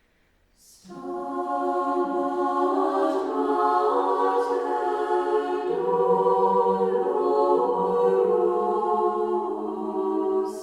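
A choir singing a cappella, several voices holding sustained notes together, starting about a second in.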